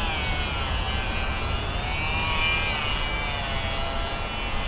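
Small handheld rotary tool running at high speed, its bit grinding out the inside of a rubber fuel-injector seal to enlarge it. A steady whine whose pitch sags slightly a couple of times as the bit bites into the rubber.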